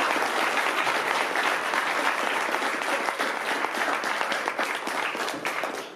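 Audience applauding: many hands clapping in a dense, steady patter that dies down near the end.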